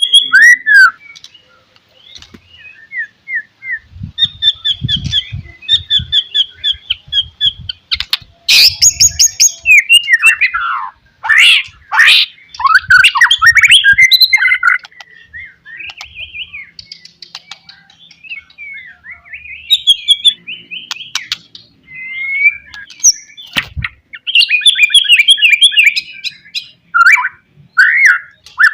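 White-rumped shama singing a loud, varied song of whistled phrases, rapid repeated trills and sweeping notes, with a few low thumps mixed in.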